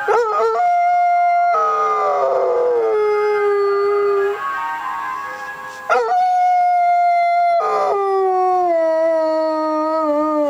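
A liver-and-white spaniel howling in two long drawn-out howls, each held high and then sliding down in pitch, with a short break about halfway through. It is howling in answer to an ice cream van, which it does at the same time every day.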